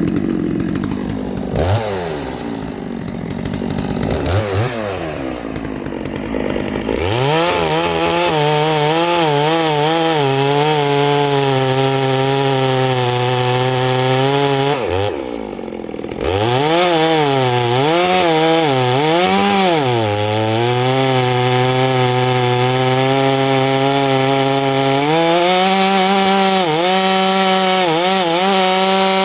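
Neo-tec NS892 two-stroke chainsaw with .404 chain, revved up and down, then held at full throttle cutting through a log, its note wavering under load. About halfway through it eases off briefly before going back into the cut, and near the end its pitch rises and holds.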